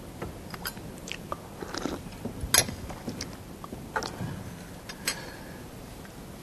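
Quiet room noise in a council chamber with scattered small clicks and rustles, the sharpest click about two and a half seconds in.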